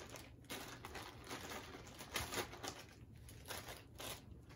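Thin plastic bag crinkling in irregular bursts as it is opened and emptied, with small plastic miniatures tipping out onto the table.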